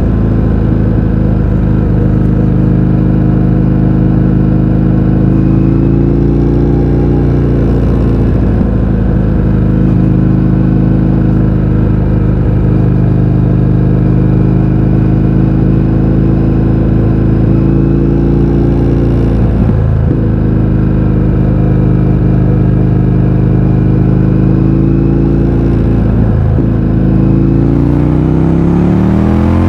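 Indian FTR 1200 V-twin running through a de-baffled Akrapovic exhaust while riding at a steady, loud engine note. The revs drop briefly twice, about two-thirds of the way in and again a little later, then climb near the end.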